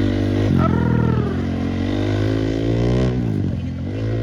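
Honda 450cc dirt bike's single-cylinder four-stroke engine revving. Its pitch climbs steadily, drops sharply about three seconds in, then climbs again near the end.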